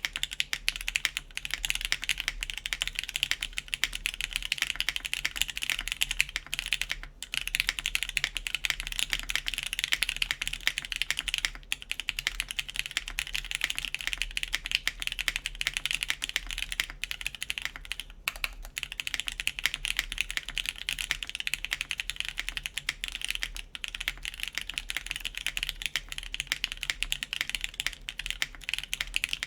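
Fast, continuous typing on a RAE Aurum mechanical keyboard with lubed Gateron Ink switches, a full carbon-fibre plate and GMK keycaps: a dense stream of keystrokes with a few brief pauses.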